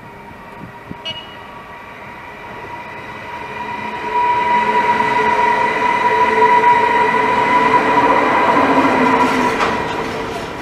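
A train approaching and passing, growing much louder about four seconds in, with a steady high whine over the rolling noise of the wheels on the rails.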